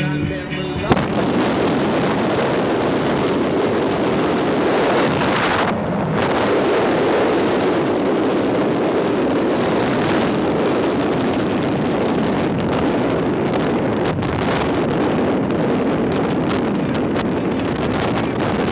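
Loud, steady wind rushing over the camera's built-in microphone in a car moving at highway speed, with no tone in it. Music cuts off about a second in.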